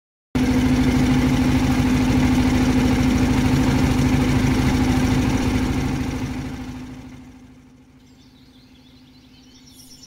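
Motorboat engine running steadily with an even rapid pulse, fading out over the last few seconds. A few faint bird chirps are left near the end.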